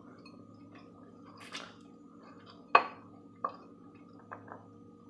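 Eating sounds: a few short sharp clicks of a utensil against a dish, the loudest about three seconds in, with a softer wet mouth sound of chewing near the start, over a faint steady hum.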